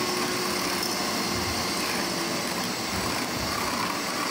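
Electric hand mixer running steadily, its beaters whipping a mixture of instant coffee, sugar and water in a steel bowl.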